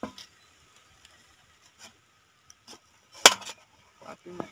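Small knife cutting and scraping into a raw green mango: scattered short slicing strokes, with one louder sharp stroke about three seconds in.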